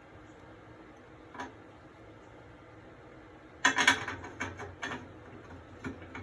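Threaded plumbing fittings being handled and turned together, giving a run of sharp clicks and rattles from about halfway through after a quiet start.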